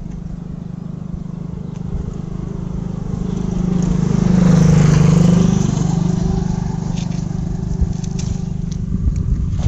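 A motor vehicle passing on the road, its engine hum growing to its loudest about halfway through and then fading away.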